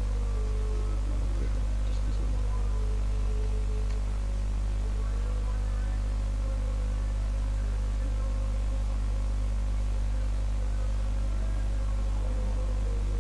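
Steady low electrical mains hum with its overtones, unchanging throughout, picked up by the recording setup.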